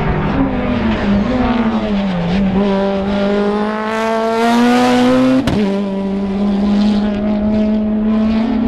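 Racing car engine at high revs. The pitch drops in steps early on as the car brakes and downshifts, then climbs steadily under acceleration until a sharp crack about five and a half seconds in, where the pitch drops at an upshift and then holds steady.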